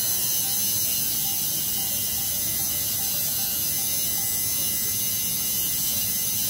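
Electric tattoo machine running steadily as its needle works the outline over a stencil on a forearm.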